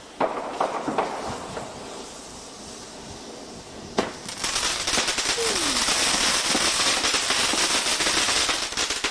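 Fireworks going off: a few sharp cracks in the first second, a single sharp bang about four seconds in, then a steady crackling hiss from a burning firework.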